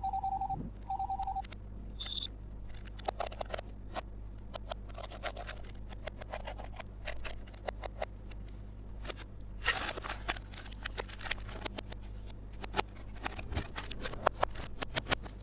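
Small plastic toy pieces of a Minnie Mouse playset clicking and tapping as they are handled, in many sharp irregular clicks. There are two short steady beeps at the very start.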